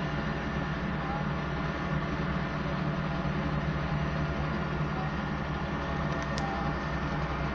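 Heavy road-works machinery engine running steadily, an even low hum with no change in pace.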